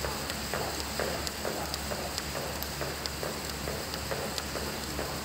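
Jump rope single-unders: the rope and the jumper's feet tap the wooden board in an even rhythm, about two taps a second.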